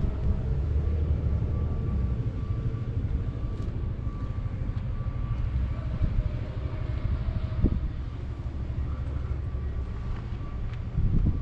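A New Holland B90B backhoe loader's diesel engine running steadily with a faint whine over it, and a couple of short knocks, one a little after halfway and one near the end.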